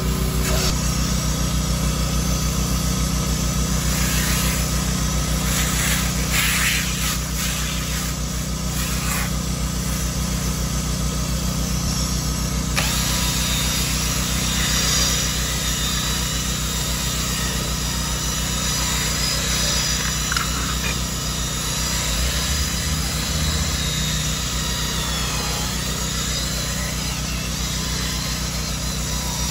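A carpet extractor's motor runs steadily throughout. From about 13 s in, a Craftsman cordless drill spins a scrub brush over the foamed fabric car seat, adding a higher whirring and brushing sound.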